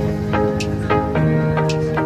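Background music: an instrumental passage with a steady run of short notes, about three or four a second, over held low notes.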